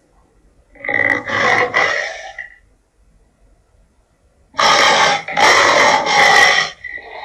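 Two harsh animal-call sound effects, the first about a second in and the second, longer one at about four and a half seconds, each with a steady high shrill note running through it.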